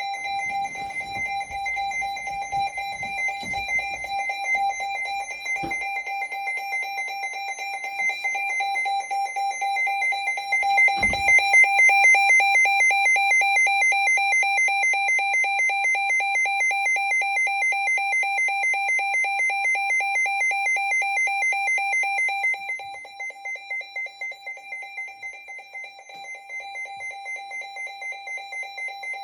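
Weather alert radio sounding its alarm for a received weather alert: a rapidly pulsing high electronic beep. The beep gets louder about ten seconds in and drops quieter about three-quarters of the way through, with a single knock about eleven seconds in.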